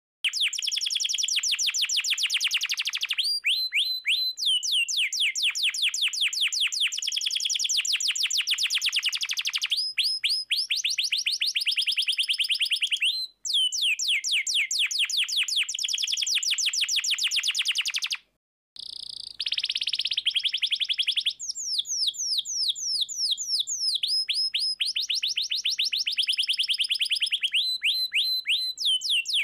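Domestic canary singing loud, fast rolling trills, strings of rapid repeated notes that change pattern every few seconds. The song breaks off briefly twice, about halfway and about two-thirds of the way through.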